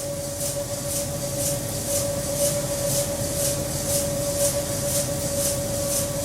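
Brewery grist mill running: a steady machine hum with a low rumble and a hiss that pulses about twice a second.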